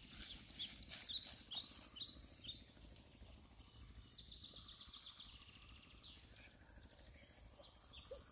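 Faint bird calls: a quick run of short, falling high chirps in the first few seconds, with a few more later. Light rustling and clicks of dry reeds sit underneath.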